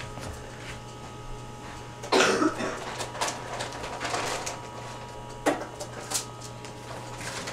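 Newfoundland puppy snuffling and pottering about a vinyl kitchen floor: one loud snuffle about two seconds in, then a few light clicks and scuffs, over a steady hum.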